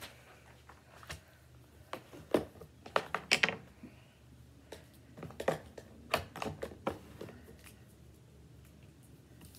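Pen writing on a paper worksheet laid on a wooden table: a run of short scratchy strokes and taps, bunched between about two and seven seconds in, as a name is signed.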